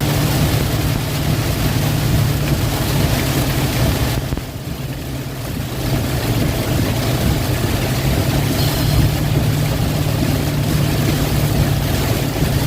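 Steady road noise in a vehicle driving through heavy rain: a low engine and tyre drone under a hiss of rain and tyre spray, dropping briefly about four seconds in.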